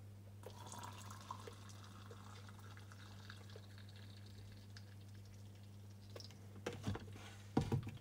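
Hot water poured from an electric kettle into the glass flask of an infuser teapot, a steady trickle for about six seconds. A few knocks near the end as the kettle is set down.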